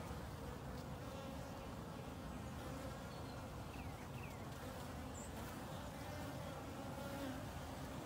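Honeybees buzzing at a hive entrance as foragers fly in and out, a steady hum.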